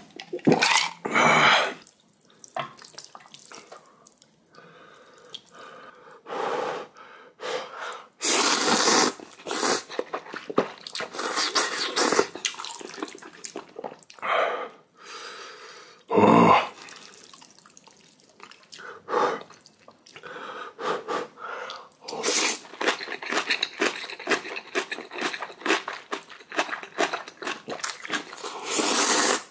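A person slurping ramen noodles and chewing, in irregular wet bursts with a few longer slurps.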